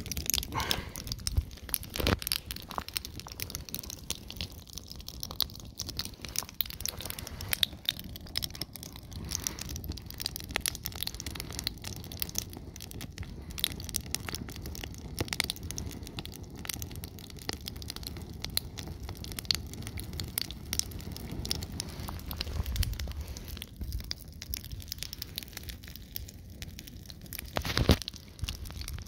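Fire crackling as a pile of sneakers burns: a dense, irregular run of sharp pops and clicks over a low rumble, with a stronger pop near the end.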